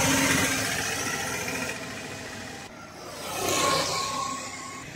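Roadside traffic: a passing auto-rickshaw's engine fades away over the first couple of seconds, then the traffic noise swells again about three and a half seconds in as another vehicle goes by.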